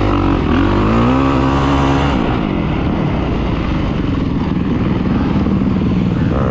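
2023 Kawasaki KX450 SR's single-cylinder four-stroke motocross engine ridden hard. It revs up with a rising pitch over about the first two seconds, then eases off and runs on at a lower, steadier note.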